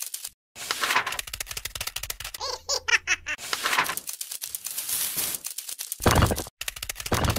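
Rapid, dry clicking sound effects dubbed over a stop-motion toy crab's legs as it scuttles. A short cartoon giggle comes about three seconds in, and a louder burst of noise about six seconds in.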